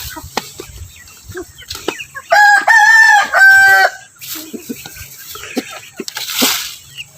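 A rooster crows once, a loud call of about a second and a half starting a little over two seconds in, among hens clucking as they feed.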